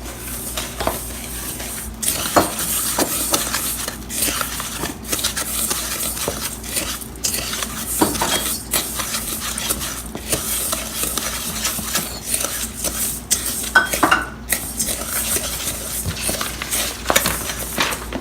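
A utensil stirring a breadcrumb, melted-butter and spice mixture in a bowl, scraping and clinking against the bowl in an uneven rhythm; it gets louder about two seconds in.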